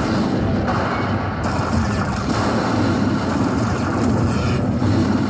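Lightning Link Magic Pearl slot machine tallying a Hold & Spin bonus win, its payout sounds playing over steady casino-floor din.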